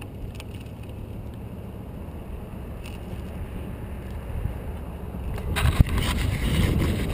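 Wind rumble and road noise on a bicycle-mounted action camera while riding on pavement, growing louder and rougher about five and a half seconds in.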